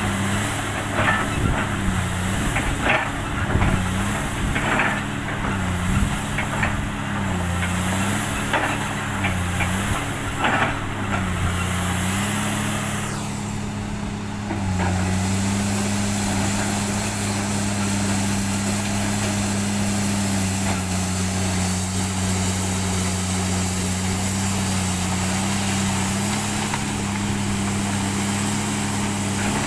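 Komatsu PC300 hydraulic excavator's six-cylinder diesel engine running under load, its pitch dipping briefly every second or two as the hydraulics work, with sharp knocks and clatter over the first dozen seconds. From about halfway on, the engine runs at a steady pitch.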